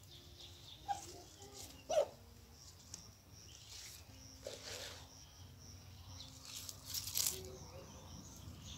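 Faint rustling and snapping of sukuma wiki (collard greens) as the leaves are stripped and torn from their stems by hand. There is a sharp snap about two seconds in and more crackles near the seven-second mark.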